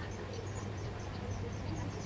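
Faint high-pitched chirping, several short chirps a second, over a steady low hum.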